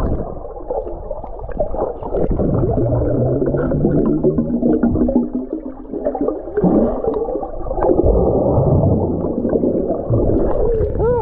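Muffled underwater sound from a submerged action-camera microphone: water movement and bubbles with steady low hums, all dull and without any high sound. A muffled voice begins near the end as the camera nears the surface.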